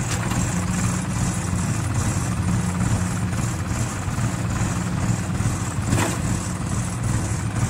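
Small farm tractor's engine running steadily at idle, with one brief knock about six seconds in.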